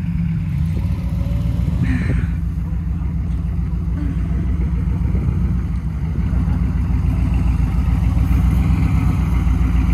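Lifted Chevrolet K5 Blazer's engine running steadily at low revs as the truck moves slowly through snow, getting a little louder in the second half.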